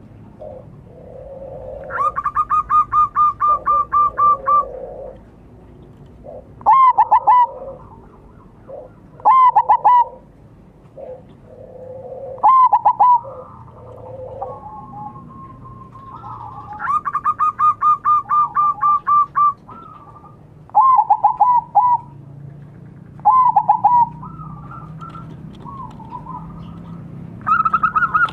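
Zebra dove (perkutut) singing: loud short bursts of its staccato cooing song repeated every few seconds, with three longer runs of quick, evenly repeated notes, and softer lower notes in between.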